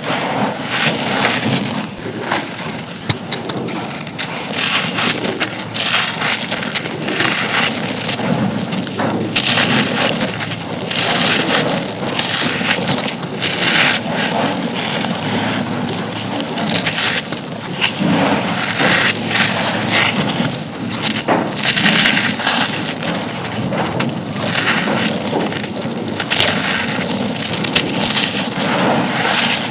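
Broken slabs of dry black concrete being crushed and crumbled: a dense, continuous crunching and crackling.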